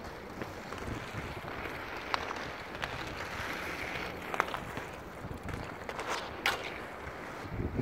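Inline skate wheels rolling on asphalt with a steady rushing noise, and sharp clacks of a hockey stick handling and shooting the puck, four of them, the loudest about six and a half seconds in.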